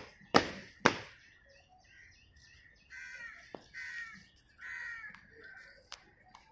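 Two sharp boot stamps on paving, about half a second apart, from cadets marching in drill, followed by crows cawing three times.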